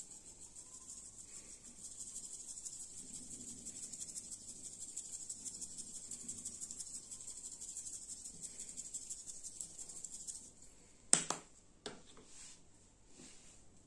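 Onion powder being shaken from a plastic shaker jar onto raw pork ribs: a steady, fine rattling hiss of powder through the shaker holes that stops about ten and a half seconds in. A sharp knock follows soon after, with a smaller one a moment later.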